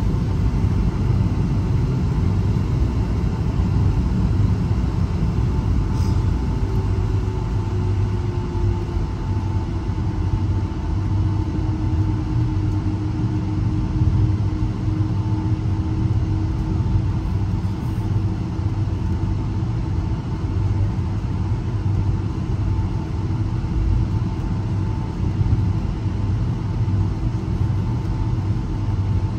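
Boeing 757 cabin noise heard from a passenger seat: a steady low rumble from the jet engines and airflow, with a thin steady engine whine over it. A second, lower tone settles slightly lower in pitch about a third of the way in.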